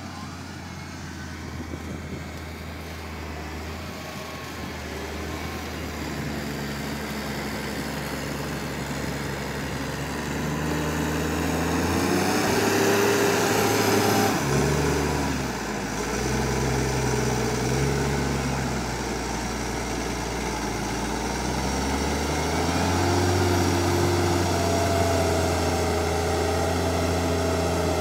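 New Holland T7050 tractor's six-cylinder diesel engine working under load as it pulls a loader wagon up onto a silage heap. The engine grows louder over the first dozen seconds and its note shifts up and down several times as the driver works the throttle on the climb.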